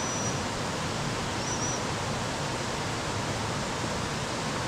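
Steady rush of water pouring over a river weir, an even unbroken noise. A faint thin high whistle sounds briefly at the start and again about a second and a half in.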